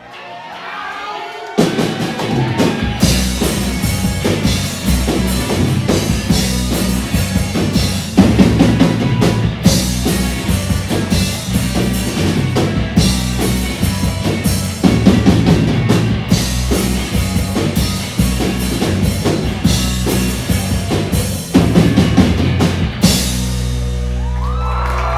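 Live band playing with a full drum kit of bass drum, snare and cymbals. It is quiet for the first second and a half, then the whole band comes in loud. About 23 seconds in the drums stop and the band holds a final chord, ringing out steadily.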